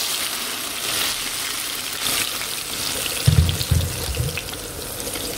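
Vegetable sauce sizzling with a steady hiss in hot frying oil, just after being poured into the pan. A few dull low thumps come about three seconds in.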